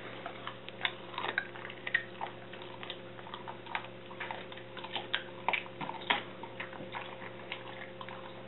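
Wolf hybrid chewing a raw bone-in pork rib: irregular sharp crunches and clicks of teeth on bone, over a faint steady hum.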